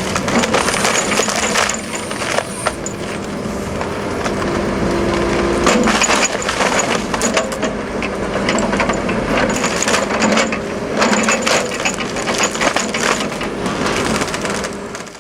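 Logs being split and crushed by a splitting attachment on a 30-ton excavator: repeated sharp cracking and splintering of wood over the steady run of the machine's engine and hydraulics.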